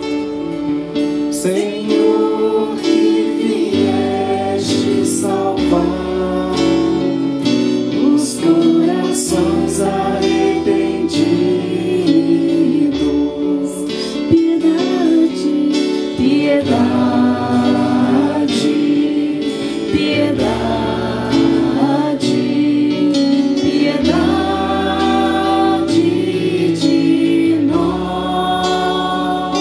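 A choir sings a church song with instrumental accompaniment. Sung melody lines move over a bass line whose notes change every couple of seconds.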